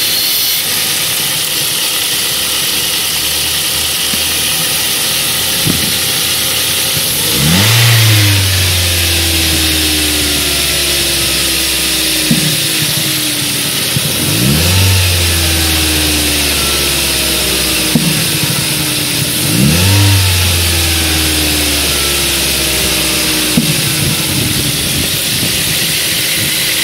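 Ford 1.8 Duratec four-cylinder engine idling, blipped up and back down three times, with a sharp pop about every six seconds. The owner doesn't know what causes the popping.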